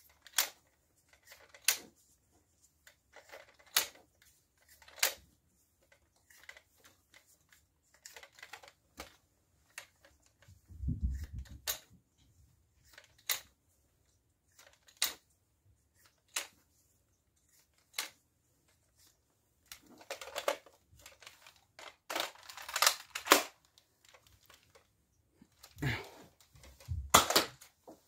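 Plastic Nerf Disruptor blasters being loaded and handled: a string of separate clicks and clacks from foam darts going into the revolving cylinders and the mechanisms being worked. Louder, denser clusters of clacks come in the second half, with one dull low knock near the middle.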